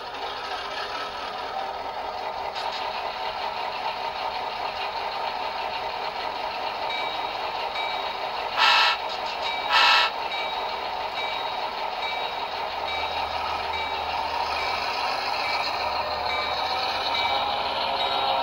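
Sound-decoder audio from HO-scale B&O EMD F7 A and B model locomotives fitted with Soundtraxx Econami decoders: a simulated diesel engine running, two short horn blasts about 8.5 and 10 seconds in, and a repeating bell ringing from then on. The sound grows louder, with a low rumble joining as the units begin to roll.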